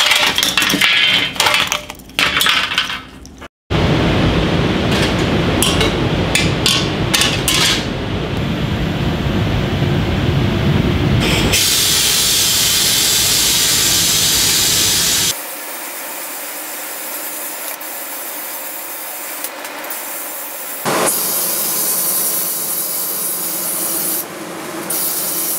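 Metal parts clinking and being handled on a wooden workbench, then after a cut a loud, rough scraping noise for several seconds. A sandblast cabinet's blast gun then hisses in long spurts, stripping old paint from steel toy plane parts, and fades back twice when the trigger eases.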